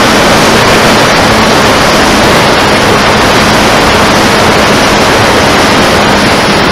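Loud, steady rushing wind noise on the onboard camera of a flying RC wing, with a faint steady hum from its 850kv electric motor and 12x8 propeller underneath.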